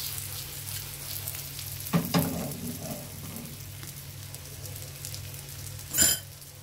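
Potato slices and egg frying in a nonstick pan: a steady sizzle with fine crackling over a low hum. A couple of metal knocks about two seconds in, from the fork working at the pan, and a sharp, louder knock near the end.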